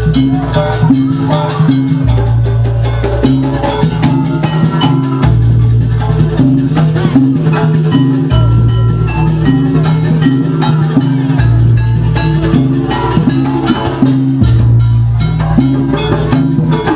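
Jaranan music: drums and struck gamelan-style percussion keeping a busy steady beat over sustained low bass notes.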